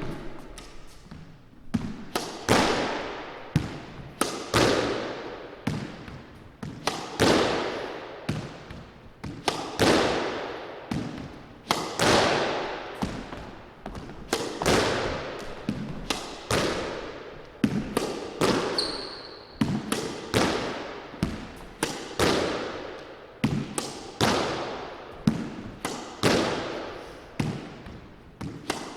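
Squash ball being hit by a racquet against the wall in a solo practice rally: sharp hits about every two seconds with smaller knocks between, each ringing on in the court's echo. A brief high squeak a little past halfway.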